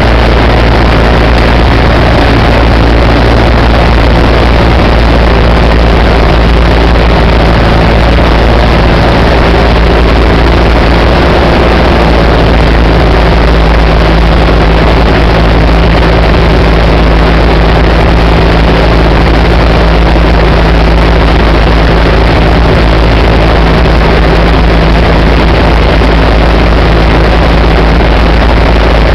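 Cessna 172's piston engine and propeller running steadily, heard inside the cabin as a loud, even drone with a heavy low rumble and airflow hiss, on final approach.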